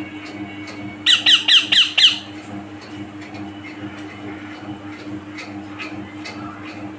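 Young green parakeet giving a quick run of five harsh squawks, each falling in pitch, about a second in.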